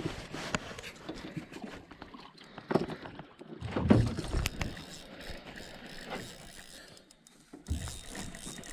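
Clicks and knocks of handling and fishing gear in a small aluminium boat, with a low thump about four seconds in as the loudest sound. In the later part, a spinning reel's handle is being cranked to retrieve line.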